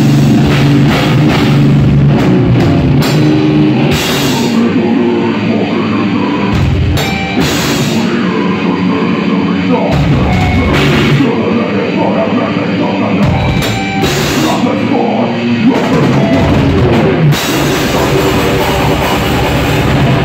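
Heavy metal band playing live: distorted electric guitars, bass and a pounding drum kit with cymbals. Through the middle stretch the playing turns stop-start, with heavy hits across the whole band.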